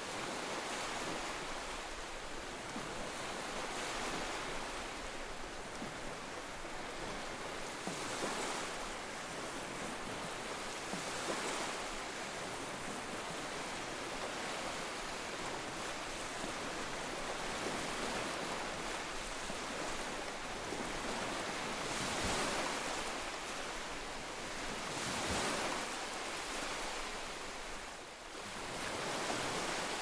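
Ocean waves washing onto rocks: a continuous hiss of surf that swells now and then as a bigger wave breaks.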